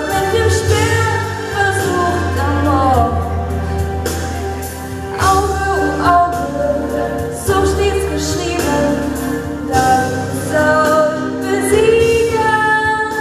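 A woman singing a German song into a microphone, amplified through a PA, over live or backing music with a strong, steady bass line.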